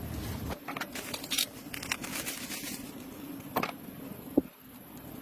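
Small tools handling and working on small plastic earbud parts at a bench: scattered light clicks, taps and scratching, with one sharp click a little over four seconds in.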